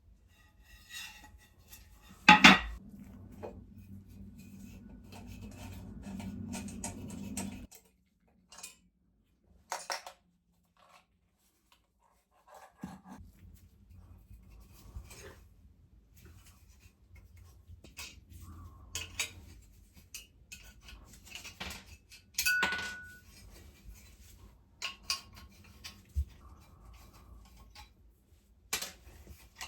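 Small metal parts clinking and knocking against each other and a hard surface, with scattered clicks and one loud knock about two seconds in. A brief ringing clink comes near the middle-late part, and a low hum runs for a few seconds early on.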